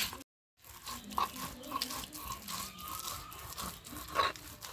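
Dried loitta fish (Bombay duck) being crushed on a shil-pata: the hand-held grinding stone is rocked and rubbed over the stone slab, a busy run of crunching and gritty scraping. The sound cuts out for a moment just after the start.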